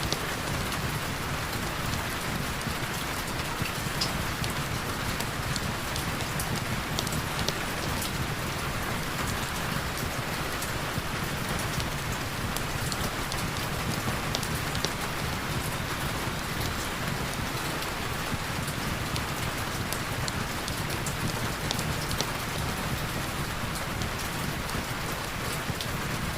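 Heavy rain falling steadily, an even hiss of rain with scattered sharp drop ticks throughout.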